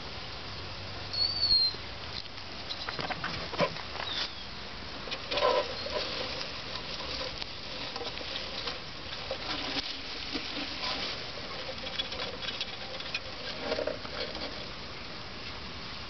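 Scattered light taps and rustling as a clear plastic box of tiny froglets is handled and pushed in among garden leaves, with a brief high chirp about a second in.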